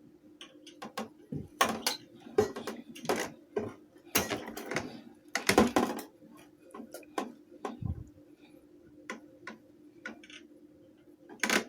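Irregular clicks, taps and clattering knocks of electric fan parts being handled, with a faint steady hum underneath.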